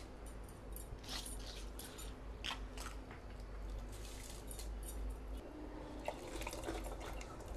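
Soaked rice dropped and stirred into hot liquid in an aluminium pressure cooker, making short wet splashes and squelches with small clinks. Near the end, the rice bowl's leftover water is poured in.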